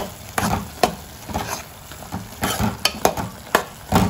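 A metal spoon stirring thick curry masala paste in a pan. It makes a string of irregular scrapes and knocks against the pan over a faint sizzle of frying.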